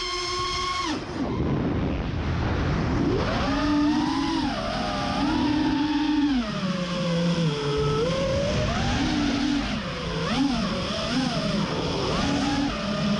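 Brushless motors of an FPV freestyle quadcopter whining, their pitch rising and falling with the throttle, after a brief steady tone in the first second.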